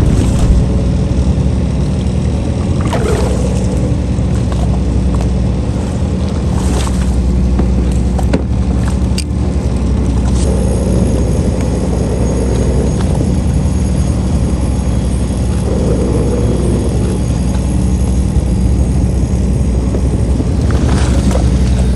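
Fishing boat's engine running steadily with a low hum, a few brief noises breaking in over it now and then.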